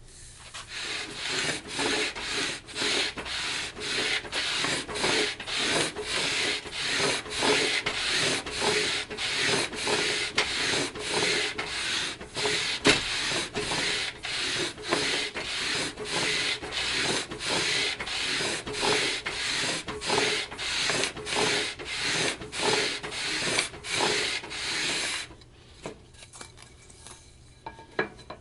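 Sandpaper on a radius sanding block rubbed back and forth along a wooden guitar fretboard, about two even strokes a second, shaping the board to a consistent radius. The sanding stops near the end, leaving a few faint handling sounds.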